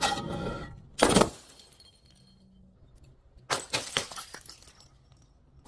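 Glass bottle breaking: a smash with ringing glass at the start and a second hard crash about a second in, then a spell of crackling and crunching glass from about three and a half seconds in.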